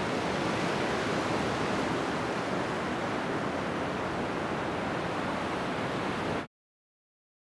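Surf washing up a shallow sandy beach: a steady rush of small breaking waves and wash. It cuts off abruptly to silence about six and a half seconds in.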